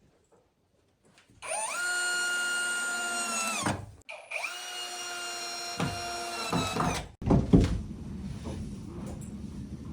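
An electric power tool, such as a drill, runs twice for about two seconds each time: its motor whines up to speed, holds steady, then winds down. This is followed by knocks and a rougher grinding or scraping noise.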